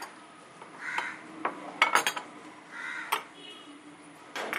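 Steel spoons clinking against small glass bowls and a glass plate on a counter: a handful of sharp, separate clinks.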